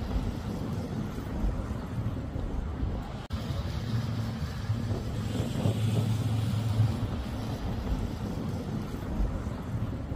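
Low, steady rumble of motor vehicle traffic, swelling and fading, with a brief dropout about three seconds in.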